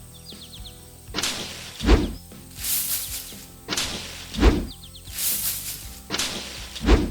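Cartoon sound effects over light background music. A swelling whoosh ends in a heavy thud, followed by a high hiss, and this repeats about every two and a half seconds, three thuds in all.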